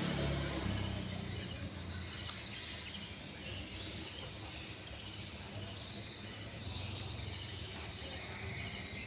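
Sony portable CD player's disc motor humming as the CD-R spins, then winding down to a stop within about the first second. A single sharp click a little over two seconds in; faint background noise after.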